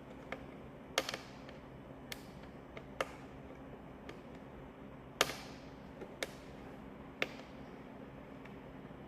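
Sharp plastic clicks and taps as the instrument cluster parts are handled and pressed together, irregular and roughly a second apart, the loudest about five seconds in.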